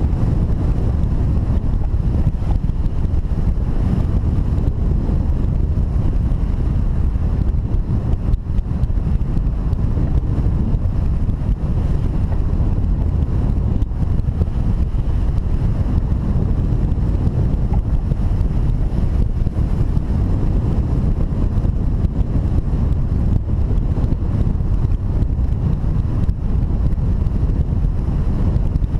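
Wind buffeting the microphone: a loud, steady low rumble of rushing air with no pauses.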